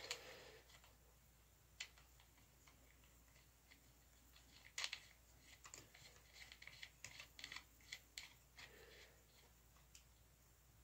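Faint, scattered metallic clicks and ticks of a nut being threaded by hand onto a deep-cycle battery's threaded terminal stud over a cable lug. The sharpest click comes about five seconds in, followed by a run of small clicks; otherwise near silence.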